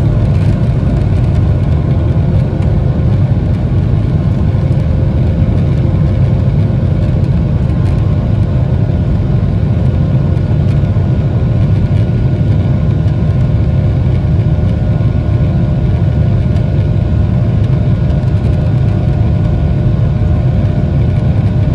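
Boeing 737-800's CFM56-7B engines at takeoff thrust, heard inside the cabin over the wing: a loud, steady rumble with a few faint steady hum tones over it, through liftoff and the initial climb.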